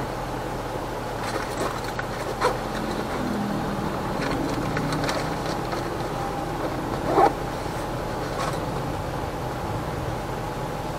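Steady road and traffic noise from a car driving in city traffic, with a few short sharp sounds; the loudest comes about seven seconds in.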